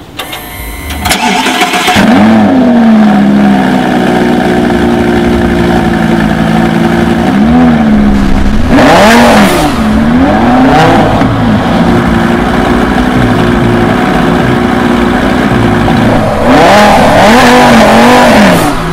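Lamborghini Gallardo LP570's V10 engine is started. The starter cranks for about two seconds, then the engine catches with a flare of revs and settles to a steady idle. It is revved in a few quick blips about halfway through and again near the end.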